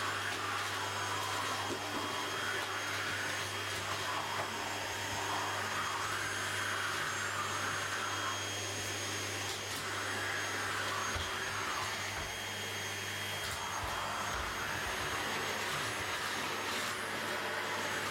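Vacuum cleaner running steadily: a continuous motor hum with a rushing sound that swells and eases every two or three seconds.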